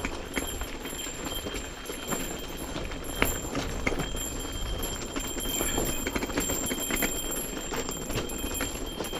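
Mountain bike rolling over a rocky, loose-gravel trail: tyres crunching on stones and the bike rattling, with scattered sharp knocks as it hits rocks, the loudest about three seconds in. A faint steady high tone runs underneath.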